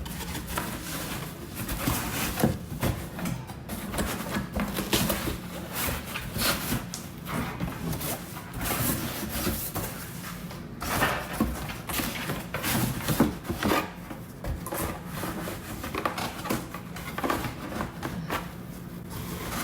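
Cardboard box and packing being handled: irregular rubbing, scraping and light knocks as an item is pushed and shifted around inside the box to make it fit.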